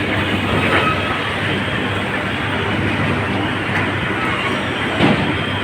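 A John Deere tractor's engine running steadily under a dense rattling clatter as sugar cane is unloaded, with a single knock about five seconds in.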